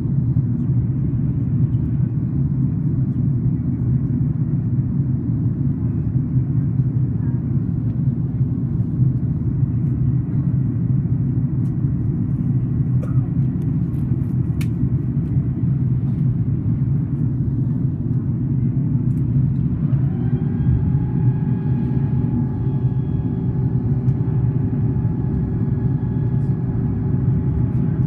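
Airliner cabin noise from a window seat: a steady low rumble of engines and airflow. About twenty seconds in, a whine rises and then holds steady for about seven seconds before stopping.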